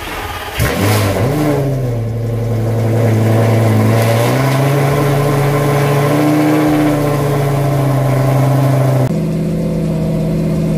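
Lamborghini Gallardo V10 engine running with the revs raised. It steps up in pitch twice and holds steady, warming the engine at about 2000 RPM before an oil change. Near the end it drops suddenly to a lower steady note.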